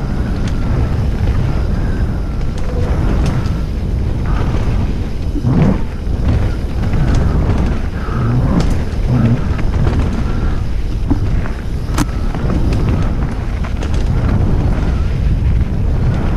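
Wind buffeting a helmet-mounted GoPro Session 5's microphone during a fast mountain-bike descent on a dirt trail, a heavy steady rumble. Scattered sharp knocks and rattles come from the bike running over rocks and roots, the loudest about twelve seconds in.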